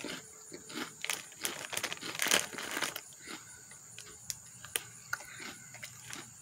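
Crinkling of an empty Hot Cheetos plastic chip bag being handled, an irregular scatter of short crackles.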